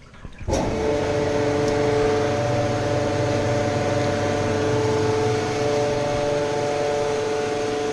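Grape press running in a winery: a steady machine hum with several held tones, starting abruptly about half a second in.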